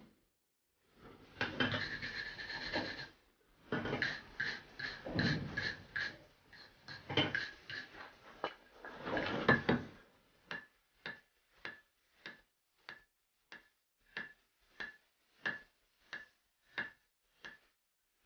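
Hand hammer forging a red-hot axe head on an anvil. Each blow is a sharp clang with a ringing note from the steel. The blows come fast and uneven at first, then settle about halfway through into a steady beat of roughly one and a half blows a second. About a second in there is a rushing noise lasting about two seconds.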